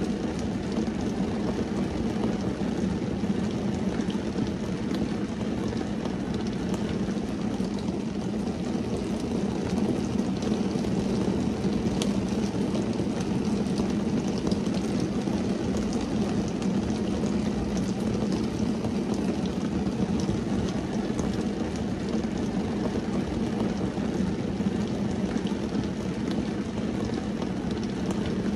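Steady rain falling on a car's windscreen and roof, heard from inside the cabin as a dull low drumming with scattered light drop ticks.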